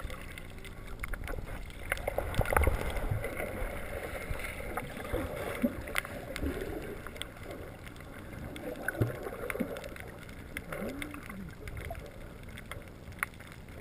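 Muffled underwater sound of swimmers kicking and splashing at the surface, with bubbles gurgling and popping, heard from below through a GoPro's waterproof housing. It is loudest about two to three seconds in.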